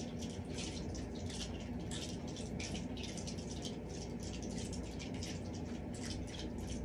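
Siamese cat purring steadily, a rattly low purr with a rapid, irregular crackle over it.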